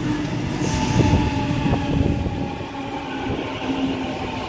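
Sydney Trains Tangara double-deck electric train running past at close range, wheels clattering on the rails with a steady hum. A few sharp clicks come about one and two seconds in.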